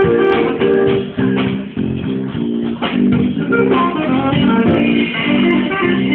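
Guitar music with plucked notes in a quick, steady pattern.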